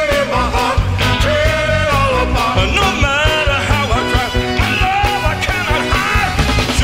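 A band playing a Motown-style song, a singer's melody over a steady drum and bass beat.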